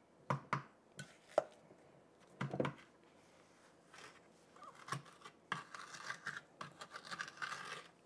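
Metal spoon clinking against a glass mixing bowl several times while scooping a stiff baking soda and washing soda paste, then a scratchy scraping through the last few seconds as the crumbly, already-solidifying paste is pushed off the spoon into plastic ice cube trays.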